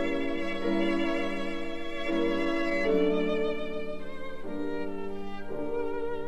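Violin music: a slow melody of long held notes with vibrato, moving to a new note about every second.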